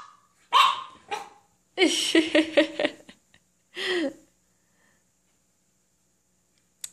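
French bulldog puppy barking in short yaps: a couple within the first second, a quick string of them about two seconds in, and one more about four seconds in.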